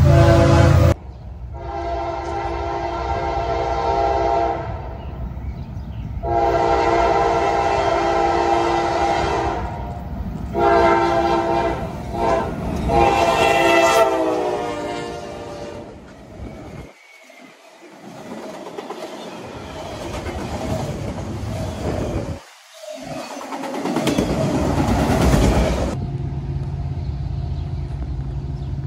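Norfolk Southern freight locomotive horn sounding the grade-crossing signal, two long blasts, a short one and a long one, the last dropping in pitch as the lead unit passes. The train then rolls by with wheels clattering on the rails, and a steady low hum takes over near the end.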